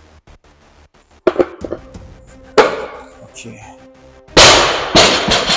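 A series of sharp bangs: one about a second in, a louder one midway that rings off, and a loud crashing noise near the end, followed by a couple more quick hits.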